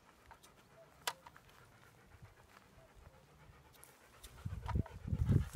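Faint, still outdoor air with one sharp click about a second in. From about four seconds in, irregular low rumbling buffets on the microphone grow louder.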